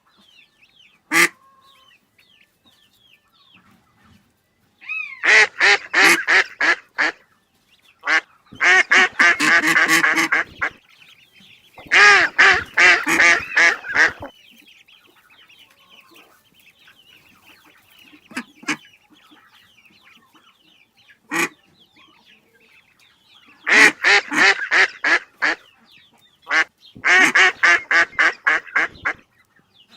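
Ducks quacking: five runs of rapid quacks, each about two seconds long, with single quacks in between.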